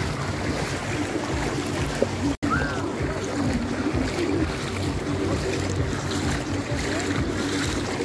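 Wind buffeting the phone's microphone over a steady wash of shallow sea water, with faint voices in the background. The sound cuts out for an instant about two and a half seconds in.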